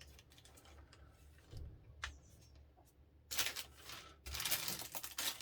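Rummaging through RC kit parts and packaging by hand: a light click, then from about three seconds in, bursts of rustling and rattling as small parts and bags are sorted through.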